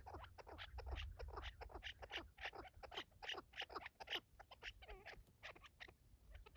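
Chukar partridges calling: a fast run of short clucking notes, about five a second.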